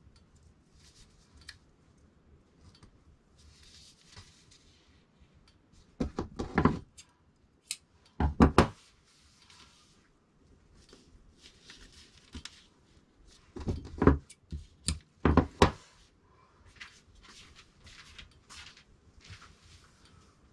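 Handling of fabric and pattern paper on a cutting table, with soft rustling, broken by sharp knocks of heavy round pattern weights being set down on the table: a cluster about six to nine seconds in and another about fourteen to sixteen seconds in.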